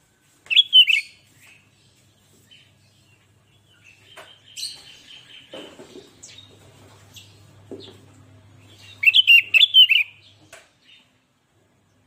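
Sooty-headed bulbul singing: two short, loud warbling phrases, one about half a second in and another about nine seconds in, with fainter chips and soft knocks between them.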